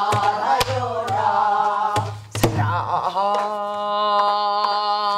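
A woman sings a Korean Namdo folk song in a pansori-style voice, beating time on a buk barrel drum with a wooden stick. Her melody bends and ornaments through the first half, with a couple of sharp drum strokes. About three seconds in she settles into a long held note.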